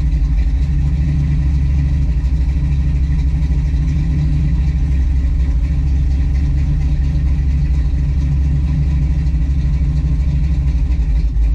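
1967 Chevy Nova's engine idling steadily on a freshly installed FiTech throttle-body EFI system, still learning its idle, with the fuel tune running rich.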